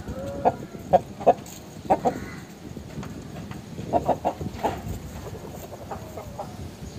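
Aseel chickens clucking: short, sharp clucks in small clusters, about a second in, again around two seconds, and a quicker run of them around four seconds in.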